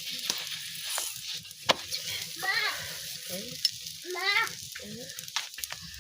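Food sizzling as it fries in hot oil in a pan, a steady hiss, with several sharp clicks from a utensil knocking on the pan.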